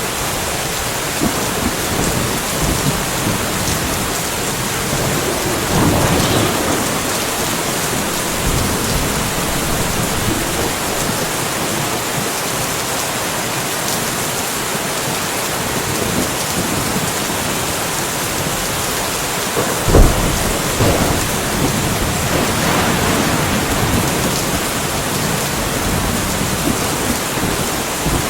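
Steady rain falling during a light thunderstorm, with thunder rolling twice: a low rumble about six seconds in, and a sharper clap about twenty seconds in that rumbles on for a few seconds.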